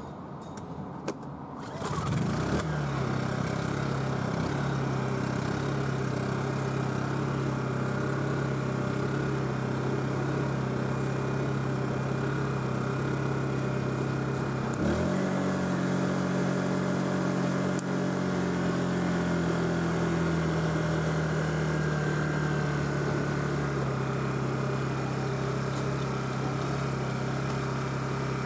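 Small portable inverter generator's engine pull-started about two seconds in, then running steadily. About halfway through its speed jumps up suddenly and then slowly eases back down over several seconds.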